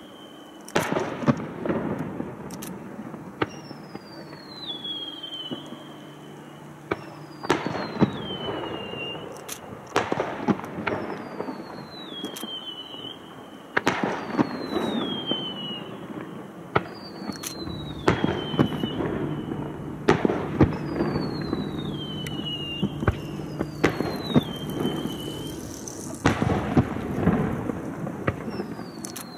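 Aerial fireworks bursting in a steady series of sharp bangs, each followed by crackling. A high falling whistle repeats about every two and a half seconds behind them.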